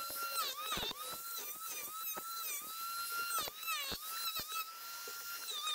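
Makita angle grinder with a wood-carving disc hollowing the bowl of an ash spoon: a high, steady motor whine that sags in pitch each time the disc bites into the wood and climbs back as it is eased off, happening several times, with scattered sharp ticks.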